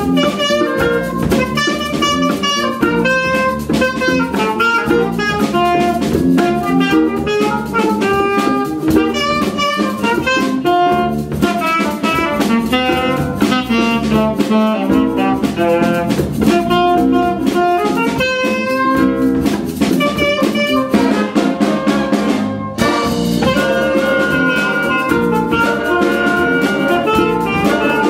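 Live jazz ensemble playing an up-tempo funk tune, with saxophones, brass and a drum kit driving a busy rhythm. The band drops out briefly about three-quarters of the way through, then comes back in.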